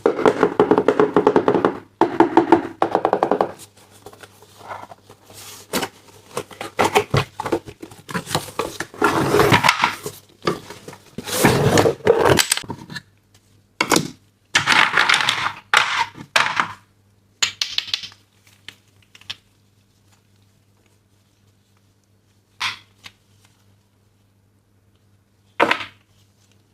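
Toy packaging being handled and opened: bursts of rustling and crinkling with many sharp clicks and taps. The sounds thin out after about twenty seconds, leaving two single clicks near the end.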